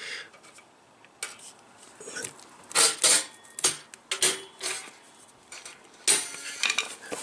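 Steel return spring of a motorcycle centre stand and a screwdriver shaft clinking and scraping as the spring is stretched and hooked onto its mount. Irregular sharp metallic clicks, the loudest about three seconds in and again about six seconds in.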